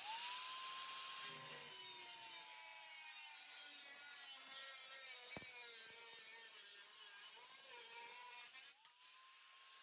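A power tool cutting out a sheet-metal patch panel: its motor spins up with a sudden start, then runs with a steady whine that sags slightly in pitch under the load of the cut. A sharp click comes midway, and near the end the tool stops briefly and spins up again.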